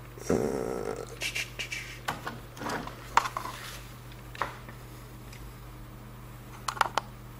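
Handling noise from test clips and a hand-held semiconductor component analyser: a short scraping rustle, then a run of irregular clicks and scrapes as the clips are fitted to a MOSFET and the tester is picked up and its buttons pressed, with a few more clicks near the end. A steady low hum runs underneath.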